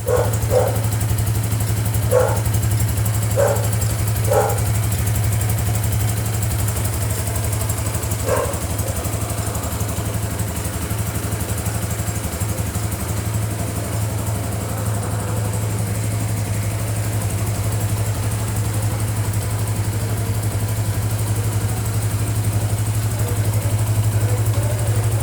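Engine of a new Kideen motorcycle with about 500 km on it, idling steadily, with a few short higher-pitched blips over the first eight seconds.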